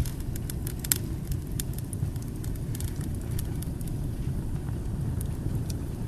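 Wood logs burning in an open fireplace: a steady low rumble of the fire with sharp crackles and pops from the logs, most frequent in the first couple of seconds and sparser after.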